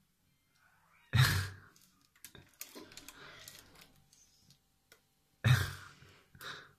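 A pit bull-type dog biting at water in a rain gutter, making two loud short bursts about four seconds apart, with a smaller one near the end and quieter splashing and rustling between.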